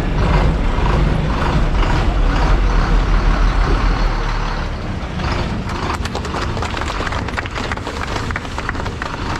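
Heavy diesel bus running loudly close by, a deep rumble under a rushing hiss. The rumble eases about four seconds in, and a rapid clatter of clicks and rattles follows.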